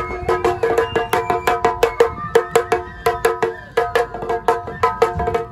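Shamisen struck fast and hard with a plectrum, a steady run of sharp, clacking plucked notes at about five a second.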